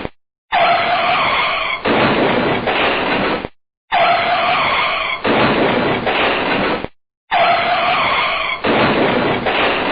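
A car braking hard, its tyres skidding in a screech. The same clip of about three seconds plays three times, with short silent breaks between.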